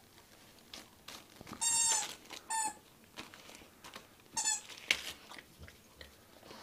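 Squeaky plastic toy bone squeaked three times as a dog mouths and chews it, the first squeak the longest, with small clicks and rustles of wrapping paper in between.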